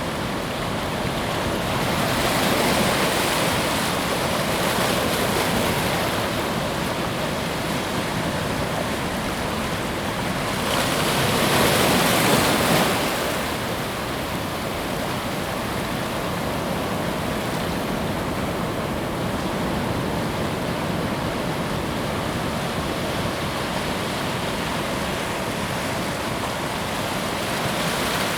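Ocean waves breaking on a beach, a steady wash of surf with a larger wave swelling and breaking about eleven seconds in.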